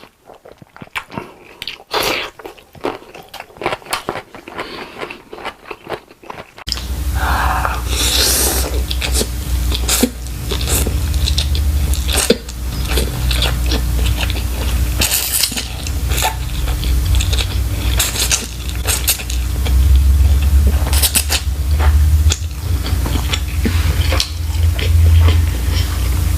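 Close-miked eating: chewing and crunching with clicks of utensils on dishes. About seven seconds in the recording changes to a louder one, with a heavy low rumble and a steady hum under the chewing.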